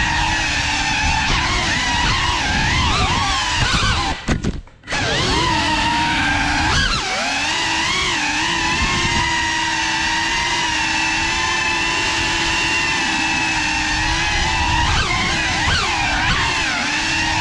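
GEPRC CineLog35 FPV quadcopter's motors and propellers whining, heard from its onboard GoPro, the pitch wavering up and down with throttle. The sound drops out almost completely for about half a second around four seconds in, then comes back.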